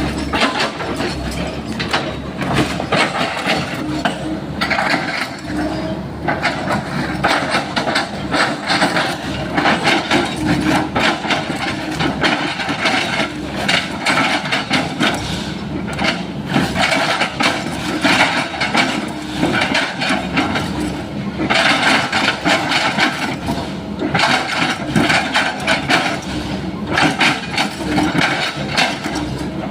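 Sany SY135F excavator running under load while its bucket chops and crushes an oil palm trunk, a dense stream of crunching and cracking wood over the engine's hum.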